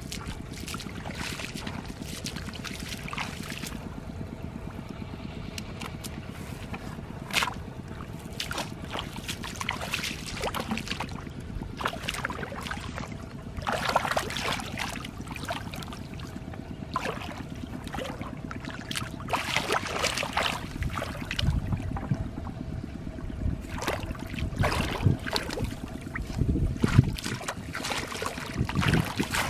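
Shallow muddy floodwater splashing and sloshing as a person wades barefoot and sweeps their hands through it to feel for fish. The splashes come in irregular bursts and grow louder and more frequent in the second half, over a faint steady hum.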